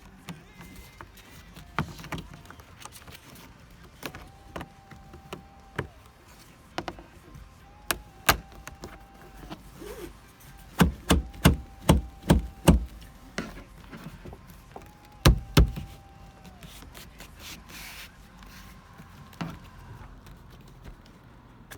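A string of sharp knocks and clicks from work on a car's seat-belt hardware. The loudest part is a quick run of about six knocks around the middle, with two more a few seconds later. A steady mid-pitched tone sounds four times in between, each lasting a second or two.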